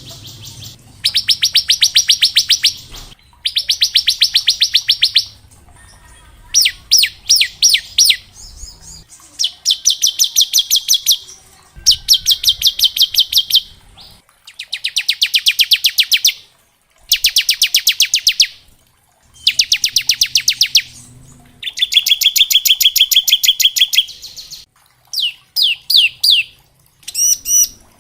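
Ciblek (bar-winged prinia) singing its 'ngebren' song: about ten rapid, machine-gun-like trills of one to two seconds each, with short pauses between them. A few phrases are slower runs of separate high notes.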